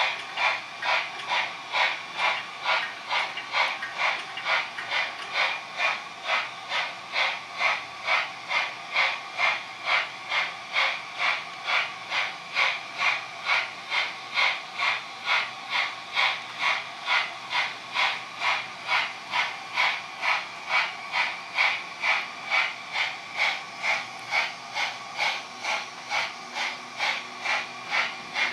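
Steam-locomotive chuffing from the ESU LokSound sound decoder in a REE Modeles 231 PLM Pacific model locomotive, a steady even beat of about two chuffs a second.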